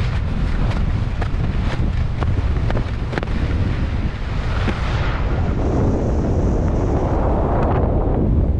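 Wind buffeting the microphone as a heavy, steady low rumble. A quick run of sharp clicks comes in the first few seconds, and a rushing hiss swells in the second half.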